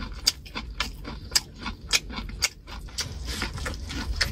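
Close-up chewing and biting of sweet corn on the cob: irregular wet mouth clicks, about two or three a second.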